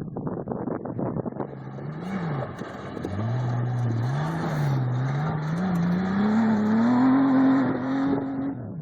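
Off-road race vehicle's engine revving as it drives past, its pitch wavering up and down with the throttle and climbing steadily, over rattling clatter in the first few seconds. The engine sound cuts off abruptly near the end.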